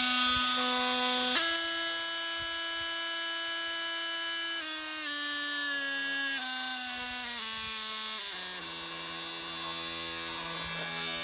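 Milwaukee 2836 M18 Fuel brushless oscillating multi-tool running unloaded with a steady, high-pitched whine. About a second and a half in, the pitch jumps up and the whine gets louder. It then steps down in pitch several times as the speed dial is turned down, ending on a low hum.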